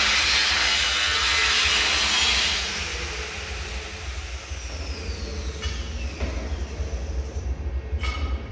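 Angle grinder working steel, throwing sparks, then switched off about two and a half seconds in: its whine falls steadily in pitch as the disc spins down. A sharp knock near the end.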